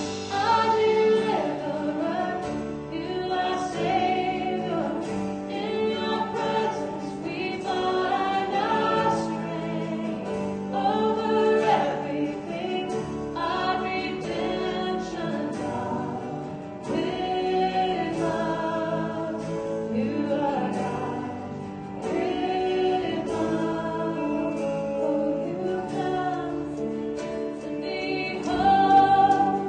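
Live contemporary worship band performing a song: several voices singing together over acoustic guitar, electric guitar and keyboard.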